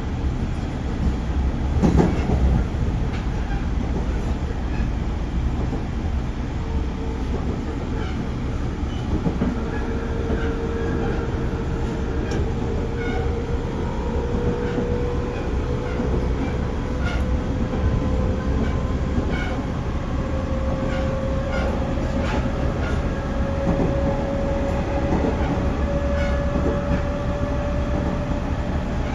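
311 series electric multiple unit running: wheels clicking over rail joints, with a sharp knock about two seconds in, and the traction motor's whine slowly rising in pitch as the train gathers speed.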